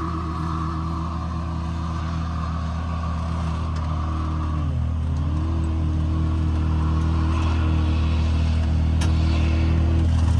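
Motor vehicle engine running at a steady speed, its pitch dipping briefly about halfway through and then recovering, the sound slowly growing louder.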